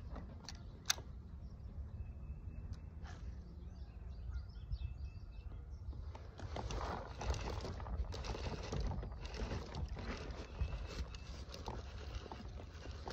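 Baitcasting rod and reel being cast and retrieved: a sharp click about a second in, then the reel turning in short uneven stretches from about six seconds on, over a low steady rumble.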